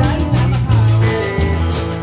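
Live band playing a song: strummed acoustic guitar over a moving bass line, with a steady beat.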